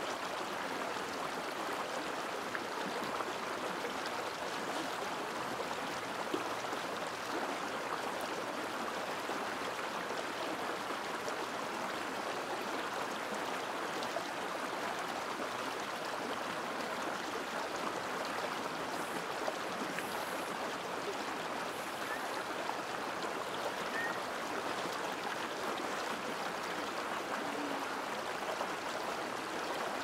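Small mountain stream flowing and splashing over a low rocky cascade, a steady rush of water.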